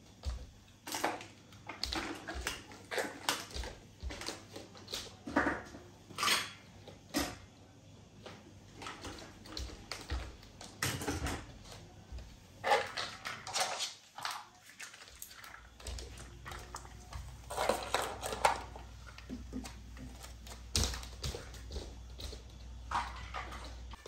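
Plastic toys knocking and clattering as they are picked up off a wooden floor and put away, in irregular clicks, taps and rustles. A low steady hum comes in about two-thirds of the way through.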